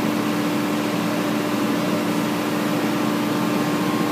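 An engine idling steadily, a constant hum that does not change.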